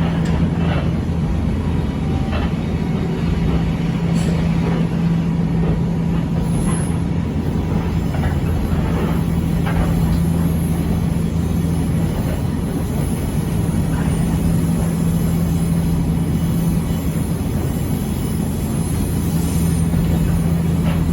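Echizen Railway 5001-series electric railcar giving a steady hum over low rumble, with a few faint clicks; the pitch of the hum holds level.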